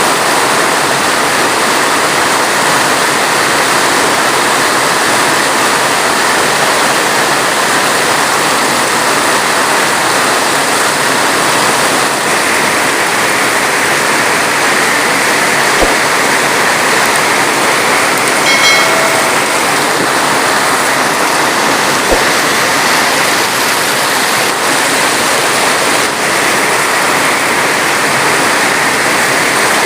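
Heavy rain falling steadily, a dense even hiss with no thunder. About nineteen seconds in there is a brief faint pitched sound, and two faint clicks fall around sixteen and twenty-two seconds in.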